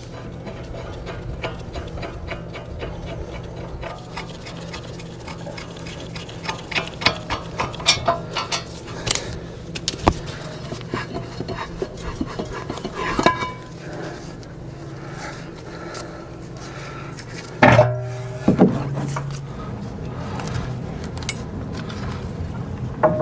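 Metal clinks and clicks of wrenches, bolts and a brake caliper being handled, as the caliper comes off a truck's front brake and is tied up out of the way. They come irregularly over a steady low hum, with a louder knock about eighteen seconds in.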